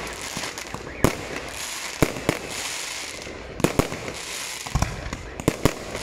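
Fireworks display: aerial shells bursting as a run of about eight sharp bangs, some in quick pairs, with a steady high hiss between them.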